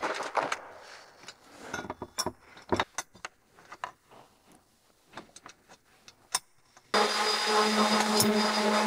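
Light clicks and metallic clinks of bolts and washers being fitted through a molded plastic tractor canopy, with short quiet gaps between them. About seven seconds in, a steady mechanical hum starts abruptly and keeps going.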